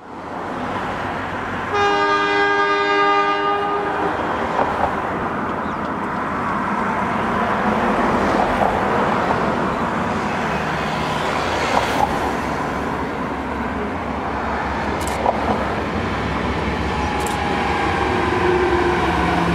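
A passenger railcar sounds its horn once for about two seconds, then runs toward the listener with rumbling wheels and running gear that grow louder, with a few sharp clicks along the way.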